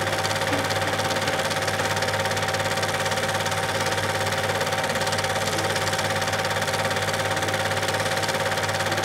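Super 8 film projector running: a steady motor hum with a fast, even clatter of the film being pulled through the gate.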